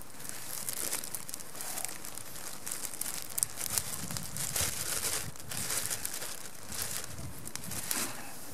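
Plastic bread bag crinkling and rustling as hands open it and take out a slice of bread, with many irregular crackles.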